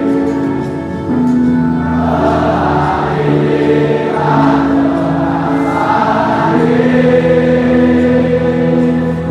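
A large stadium crowd of football supporters singing a slow chant together in unison. Long held notes change every second or two.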